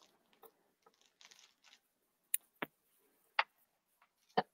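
Soft rustling, then four sharp clicks and taps spread over the last two seconds, from wreath-making materials and a hot glue gun being handled on a tabletop.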